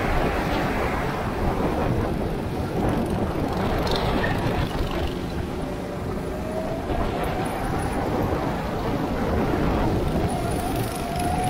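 Go-kart engine running, its pitch rising slowly through the second half, over a heavy low rumble.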